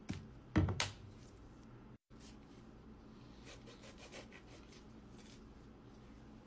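A couple of short knocks in the first second, then a serrated knife sawing through a fresh lime held in a gloved hand, faint rasping strokes with light ticks.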